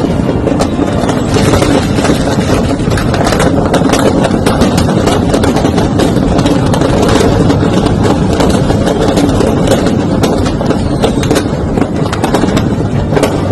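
Firecracker stock burning, with a dense string of sharp crackling pops going off without a break over a loud, continuous rumble.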